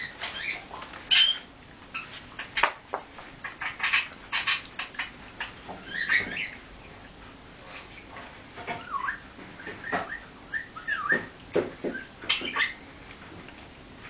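Budgerigar chattering: a busy run of short chirps, clicks and warbled notes, with a brief lull about halfway through.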